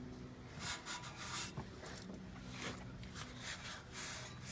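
Rag wiping oil residue off the underside of a car's oil pan and exhaust header: a string of irregular rubbing strokes.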